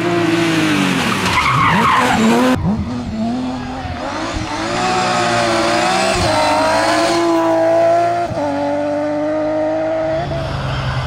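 BMW E36 3 Series rally car's engine revving hard at speed, its pitch climbing and dropping through gear changes. There is a sharp drop in revs a little after the middle.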